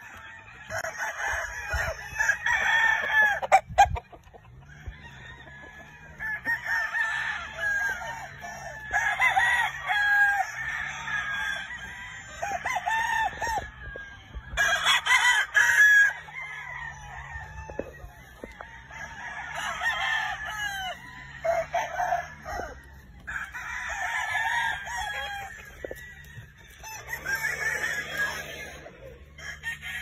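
Gamefowl roosters crowing one after another, a crow every two to three seconds, with some clucking between.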